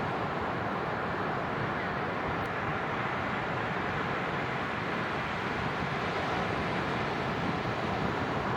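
Ocean surf on a beach: a steady rushing wash of breaking waves with no distinct single crashes.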